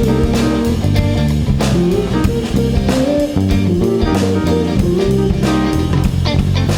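A live jazz band playing, with guitar, bass and drum kit.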